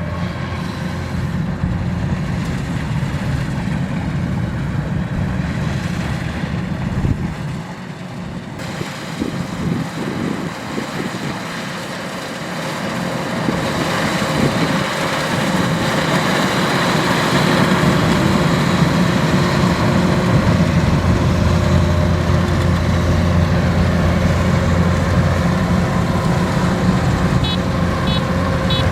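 Kubota DC-93 combine harvester's diesel engine running steadily under load, easing off for a few seconds around the middle and then picking back up. Near the end an electronic reversing beeper starts, quick short beeps repeating about twice a second.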